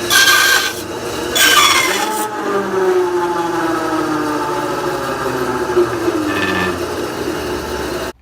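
Bandsaw running with harsh screeching and rubbing bursts over a whine that slowly falls in pitch. The noise is not normal and is the sign of a worn-down drive belt slipping on the drive shaft, as the owner suspects.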